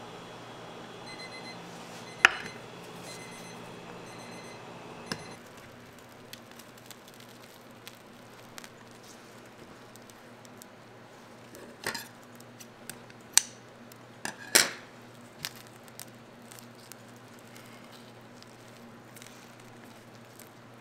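Kitchen clatter: a few sharp knocks of utensils and dishware, loudest about two seconds in and again three times between twelve and fifteen seconds. In the first few seconds an electronic device beeps in short repeated pulses, over a steady hum from an appliance.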